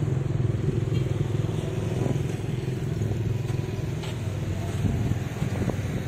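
A motor vehicle's engine running close by, a low steady rumble that slowly fades away.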